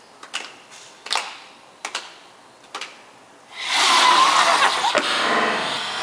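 A group of people taking quick, sharp breaths in, about one a second, then from about three and a half seconds in a loud group roar as they exhale hard in a 'dragon' breathing exercise. It cuts off suddenly at the end.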